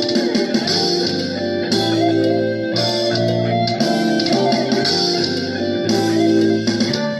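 Multitrack forró-style arrangement playing back, with electric guitar over drums, bass and keyboard.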